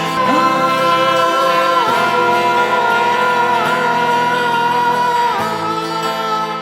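Music: a song playing, with long held notes that dip briefly in pitch every second or two.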